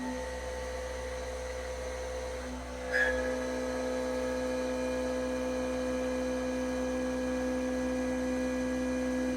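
Syil X7 CNC mill running with a steady, even-pitched hum, with a brief louder burst about three seconds in.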